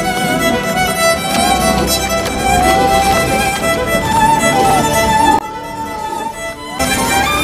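Dramatic film-score music led by a wavering, violin-like melody. About five and a half seconds in it turns quieter and muffled for over a second, then comes back at full strength.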